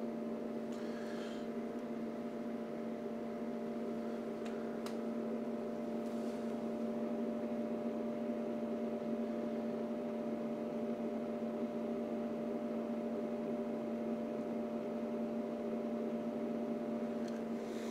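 Steady electrical hum with one strong low tone and fainter higher tones above it, from the amplifier test bench while a function-generator test signal runs. A few faint clicks come about a second, five and six seconds in.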